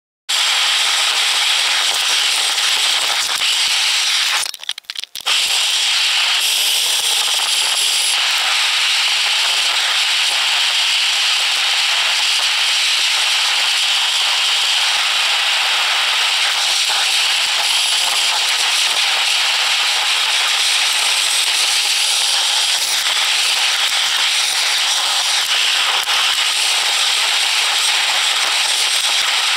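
Loud, steady crackling hiss like static or electronic interference on the recording. It cuts in and out abruptly, with a brief dropout about four to five seconds in.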